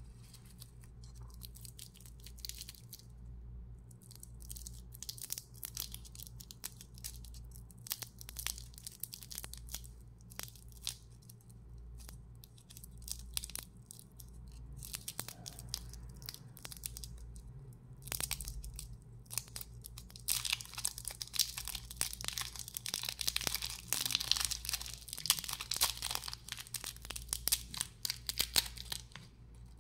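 A lollipop's foil-and-plastic wrapper crinkling and tearing as fingers peel it off the candy ball, in scattered bursts of rustling that become densest and loudest about two-thirds of the way through. A steady low hum runs underneath.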